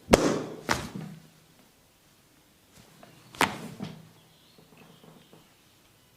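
Sharp percussive hand strikes of a barber's head massage: three slaps, two close together at the start and a third about three seconds later.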